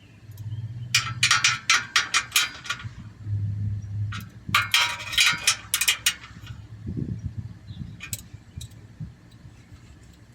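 Metal hand tools clicking and clinking in two quick runs of sharp clicks, with a low hum between them, as the last heat-shield bolts are worked.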